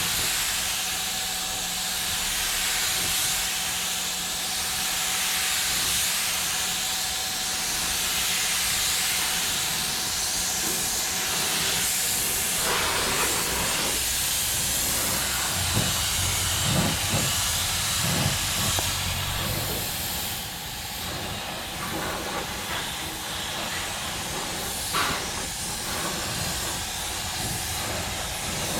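Compressed-air spray gun hissing as it sprays underbody coating, the hiss rising and falling as it is worked. A few knocks and clatters come through around the middle.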